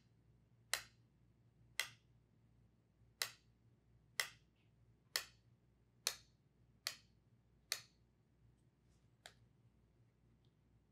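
Two plastic marker pens tapped together next to the open end of a tube: sharp clicks about once a second, nine in a row and a fainter one later. Each tap is a short sound pulse sent down the tube so that a sound sensor can time its echo.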